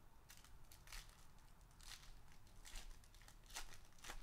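Foil wrapper of an Upper Deck SPX hockey card pack crinkling and tearing as it is peeled open by hand, in faint, irregular crackles.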